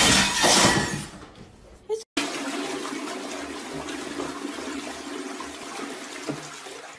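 A toilet flushing: water rushing and swirling steadily in the bowl for about five seconds. It starts after a brief break about two seconds in, which is preceded by a second of loud, jumbled noise.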